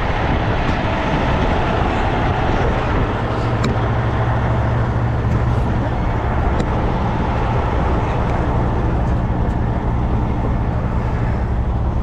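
Heavy truck's diesel engine running steadily with a low hum, under a steady rushing noise, with a few faint clicks.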